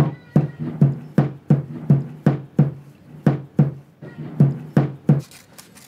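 Wooden rod pounding down on a board to pack a homemade chlorate-and-sulfur explosive charge tight in its paper wrapping: a steady run of dull thumps, about three a second.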